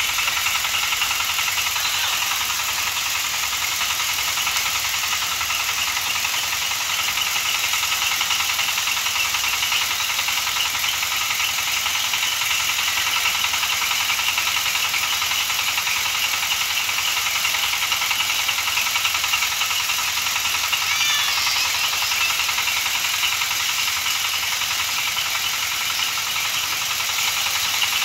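Rice threshing machine running steadily, its single-cylinder diesel engine driving the threshing drum while rice straw is fed in and threshed grain pours out.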